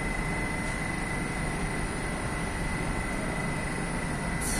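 Steady low rumble of a metro station platform with a faint, steady high whine over it. Right at the end a sudden rush of hissing noise sets in.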